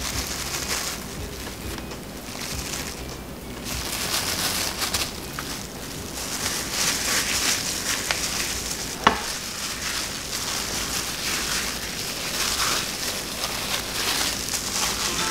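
Plastic-gloved hand rubbing minced garlic into a raw beef brisket: wet smearing and the glove crinkling, coming and going in swells, with one sharp click about nine seconds in.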